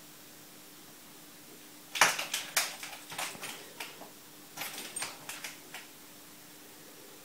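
Pet doorbell rung by a cat pawing at it: a rapid run of sharp bell strikes starting about two seconds in. The strikes come in two bouts over nearly four seconds.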